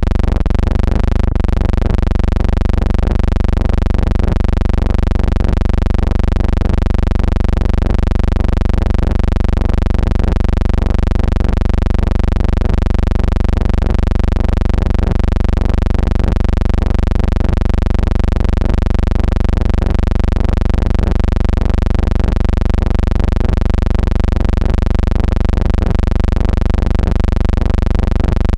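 A loud, steady low hum of unchanging stacked tones, with a single sharp click about a second in.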